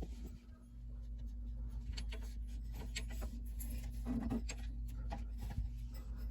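Faint handling noise, light rubbing and scattered small clicks, over a steady low hum.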